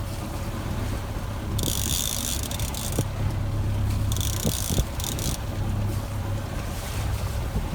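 Boat under way: a steady low rumble of its motor with wind and water noise. Short bursts of high hiss come in twice, about two seconds in and again around four seconds.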